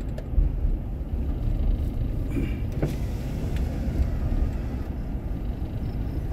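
Steady low rumble of a car's engine and tyres, heard from inside the cabin while driving slowly, with a few faint clicks about two and a half to three seconds in.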